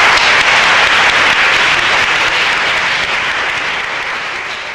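Audience applauding, a steady dense clapping that slowly dies down toward the end.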